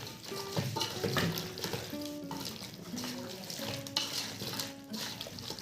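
A spoon scraping and clinking in a bowl as spice powders are mixed into a raw chicken marinade, with background music playing held notes underneath.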